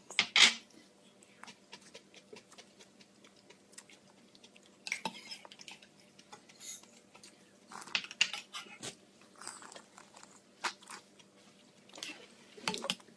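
A spoon clinking and scraping against a small metal bowl of soup vegetables in scattered, irregular strokes, with the loudest clatter about half a second in. A young child chews in between.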